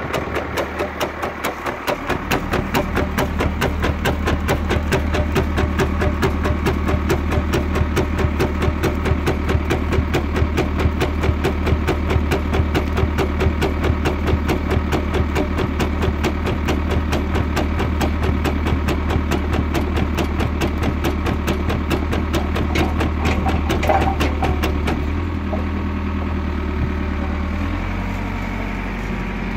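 BVL Topstar block cutter's reciprocating knife cutting down through round straw bales: a fast, even clatter of knife strokes over the steady hum of the tractor engine and hydraulics driving it. The clatter stops about 25 seconds in, leaving the engine running on its own.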